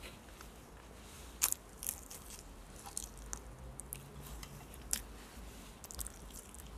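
A person chewing food with the mouth close to the microphone, with scattered short wet clicks and smacks, the sharpest about a second and a half in and about five seconds in.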